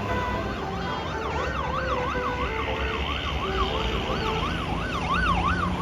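Siren-like warbling tone sweeping up and down about twice a second, over the low rumble of a passing vehicle's engine.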